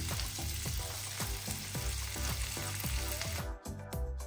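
Red bell pepper strips sizzling in melted butter in a frying pan as they are lightly sautéed to soften, with a wooden spatula scraping and clicking against the pan as they are stirred. Near the end the sizzle comes and goes in short spurts.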